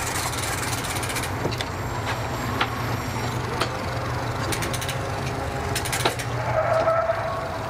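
Mercury 115 four-stroke outboard idling with a steady low hum as the boat is driven slowly onto its trailer, with a few sharp knocks along the way.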